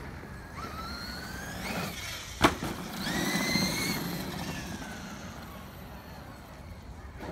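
Cen Reeper 1/7-scale RC monster truck's brushless electric motor whining as it accelerates, the pitch rising twice under throttle and falling away after about four seconds, over the hiss of tyres on dry dirt. A single sharp knock about two and a half seconds in is the loudest sound.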